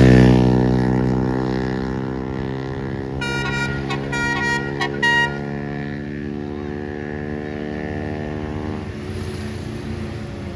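A tour bus's diesel engine runs loud as it passes close, then fades and drops slightly in pitch as it pulls away. About three seconds in, a quick run of short, high horn notes from a basuri telolet melody horn sounds for about two seconds.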